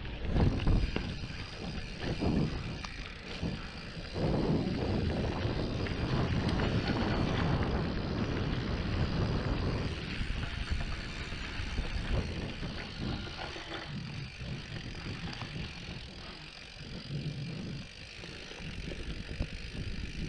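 Mountain bike rolling over a rough dirt trail: tyre noise with knocks and rattles over bumps, louder for several seconds starting about four seconds in.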